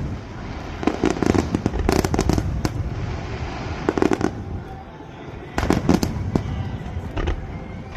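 Fireworks going off: two dense volleys of sharp bangs and crackling, with a quieter lull of a couple of seconds between them.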